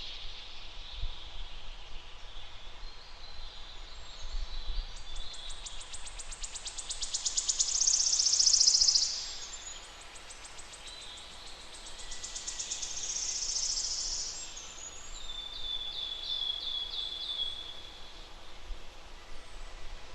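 Songbirds singing: two long, rapid high trills that swell in loudness, the first the loudest and ending abruptly about nine seconds in. A shorter run of notes follows near the middle, over a steady high background of distant birds or insects.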